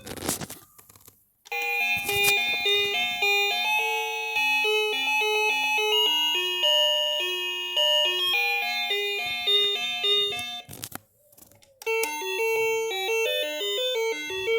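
Luckarm doorbell chime playing an electronic melody of clean stepped notes for about nine seconds. After a short break, another tune starts near the end.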